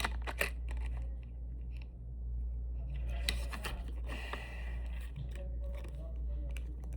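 Light clicks, taps and rustles of small plastic toy pieces and packaging being handled, over a steady low hum.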